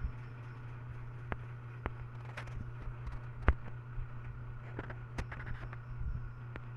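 A steady low hum with scattered sharp clicks and ticks; the loudest click comes about three and a half seconds in.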